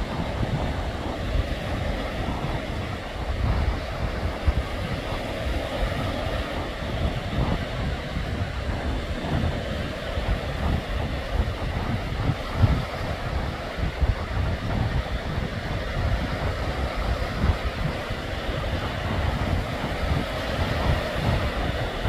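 Wind buffeting the microphone in irregular gusts over the steady wash of small sea waves.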